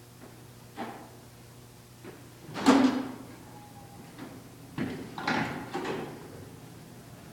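Glass entrance doors opening and shutting: one loud clunk about two and a half seconds in, then a cluster of knocks and rattles a couple of seconds later.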